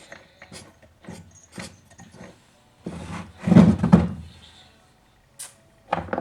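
Clicks, knocks and rubbing as parts and tools are handled during chainsaw repair, with a louder clatter about three and a half seconds in.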